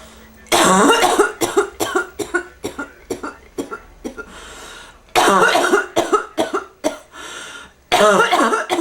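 A person coughing hard in three fits, each a strong hacking cough followed by a quick run of shorter coughs. This is the chesty cough of bronchitis.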